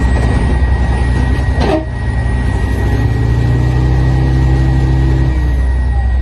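Heavy diesel engine of a bulldozer running under load, a steady low rumble. A quick falling sweep comes a little under two seconds in, and a held engine note follows for a few seconds.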